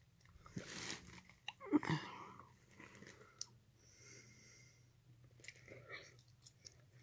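Faint breathing close to the microphone, with a louder short breath or throat sound about two seconds in and scattered small clicks.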